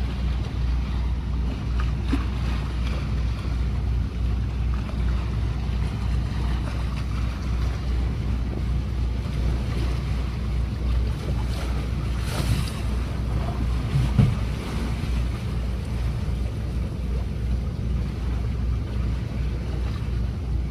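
Wind buffeting the microphone over water rushing past the hull of a boat under way. A hiss of spray comes about twelve seconds in, and a single thump about fourteen seconds in as the hull meets a passing boat's wake.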